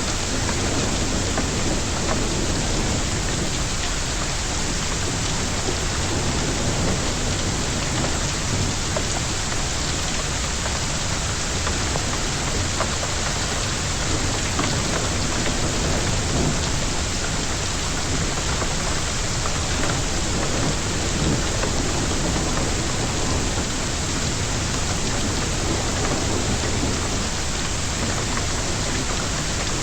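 Heavy rain and hail of a hailstorm pelting surfaces close to the microphone, a steady, unbroken downpour with scattered small ticks of impacts.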